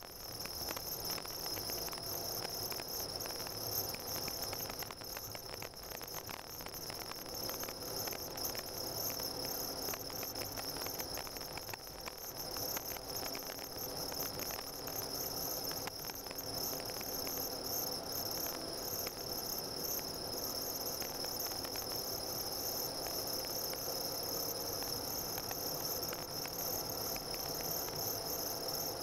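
Car driving on a snow-packed road, heard from inside the cabin: steady engine and road noise with a fine crackling of the tyres on the snow, under a steady high-pitched whine.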